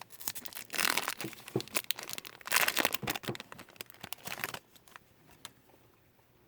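A baseball card pack wrapper being torn open and crinkled for about four seconds, then a few faint clicks as the cards are handled.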